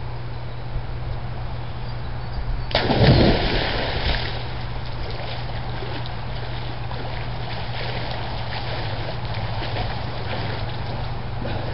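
A person jumping into a swimming pool: one big splash about three seconds in, then softer splashing and lapping of the water.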